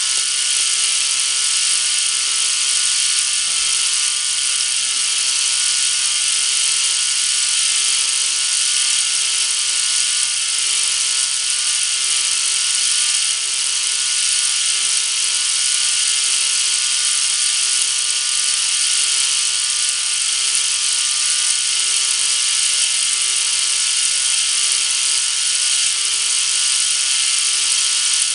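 K'nex battery motor and plastic gear train running steadily, a continuous high-pitched whir as they drive the spinning chair swing ride.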